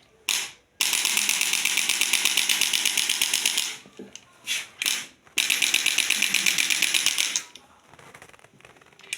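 Handheld electric percussion massage gun running in rapid, even pulses: a short burst, a run of about three seconds, two brief bursts, then another run of about two seconds.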